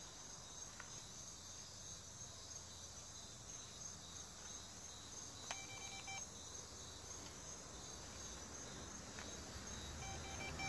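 Crickets chirping steadily at night. A short electronic beep comes twice, about five and a half seconds in and again near the end.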